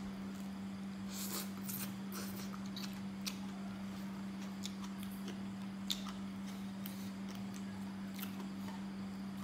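Scattered short, crisp clicks and crackles of fresh vegetables being snapped apart and chewed, over a steady low hum.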